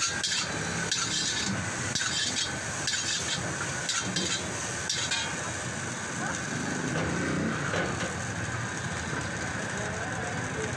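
Stir-fry sizzling in a hot wok while a metal spatula scrapes and clinks against the pan about once a second. The spatula strokes stop about halfway through and the sizzling goes on.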